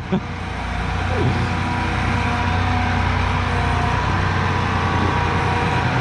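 John Deere 8260R's 9.0-litre six-cylinder PowerTech diesel engine running at low speed as the tractor manoeuvres. A steady whine rides over the engine note, and the sound grows a little louder about a second in.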